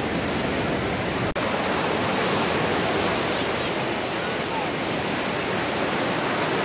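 Ocean surf breaking and washing over the shallows of a sandy beach, a steady rush of water that cuts out for an instant about a second in.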